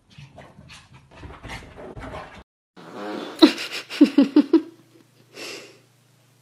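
A person's fart: a rasping buzz of about half a second, then a quick run of four or five short, sharp, pitched bursts, the loudest sound here. Before it comes irregular scuffling and rustling.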